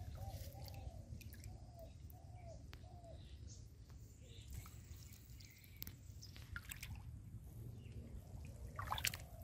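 Faint outdoor ambience: a steady low rumble, a run of short calls in the first three seconds, and scattered small clicks and water drips or splashes, the loudest cluster about nine seconds in.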